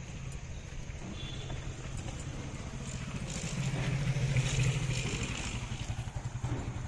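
Motorcycle engine running as it rides past, growing louder to its closest point about four to five seconds in, then easing off as it moves away ahead.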